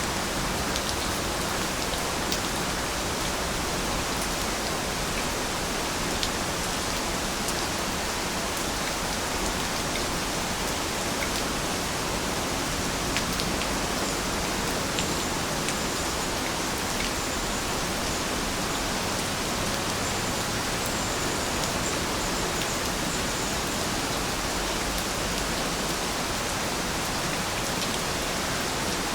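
Steady rain falling: an even hiss, with scattered sharper drop ticks.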